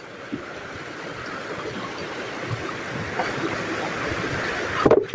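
Shallow stream rushing over rocks, with water sloshing around a person wading and handling stones in it. A short, louder splash comes near the end.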